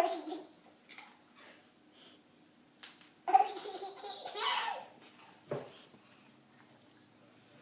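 Small child laughing: a short burst at the start, then a longer, louder fit of giggling about three seconds in, with a few short clicks in between.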